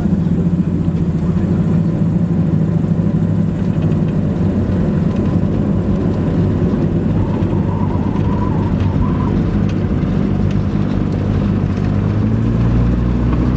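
Cessna 172's four-cylinder piston engine and propeller droning steadily, heard inside the cabin, the engine note shifting slightly near the end.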